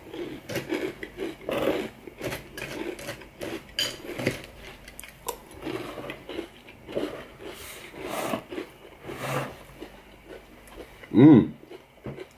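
A person chewing spoonfuls of Frosted Cheerios in milk, with many short, irregular soft sounds. About 11 seconds in comes a brief, louder low hum from the eater.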